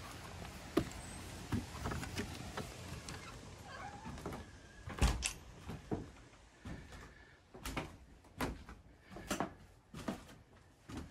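Footsteps up a wooden step and across a wooden floor, knocking about once a second, with a door being opened and shut; the loudest knock comes about five seconds in, and there are faint hinge squeaks.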